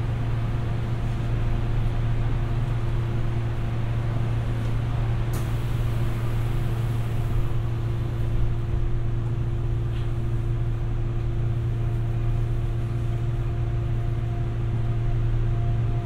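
Running noise heard inside a Busan Metro 2000 series subway car under way between stations: a steady rumble of wheels on rail with a steady hum. A brief high hiss comes about five seconds in.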